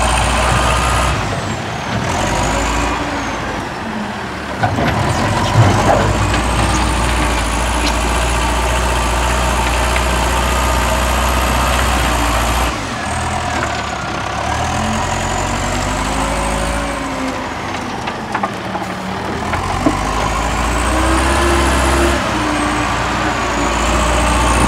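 Caterpillar 950E wheel loader's diesel engine running hard, its revs rising and falling as it works the bucket into a gravel pile, with a high whine that climbs and falls along with the revs. A few sharp knocks of rock come about five seconds in.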